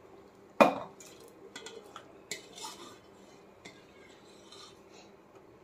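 A ladle knocking and scraping against a stainless steel pot while stirring curry. There is a sharp clank about half a second in and another about two seconds in, with lighter clinks and scraping between them.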